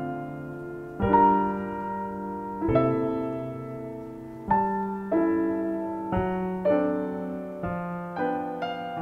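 Background music: slow piano chords, each struck and left to fade, coming more often toward the end.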